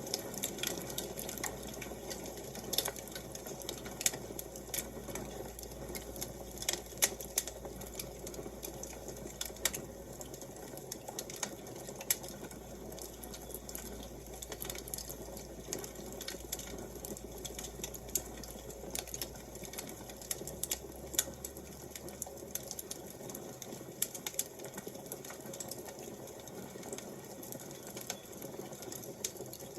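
Wood fire crackling: irregular sharp pops and snaps over a steady soft hiss. A faint low hum underneath stops about two-thirds of the way through.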